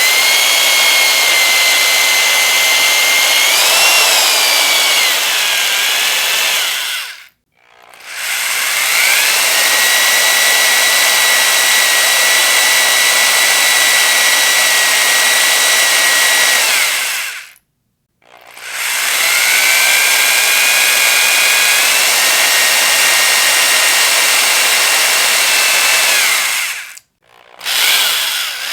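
Electric power drill running in three long bursts of about seven to ten seconds each, a steady high whine that winds up in pitch at each start and cuts off briefly between runs; the pitch rises and dips for a moment about four seconds in, and a fourth run starts near the end.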